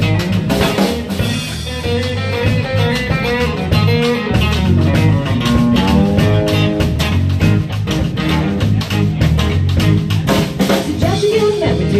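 Live rock band playing a song: a steady drum-kit beat with electric guitar and bass. A singer's voice comes in near the end.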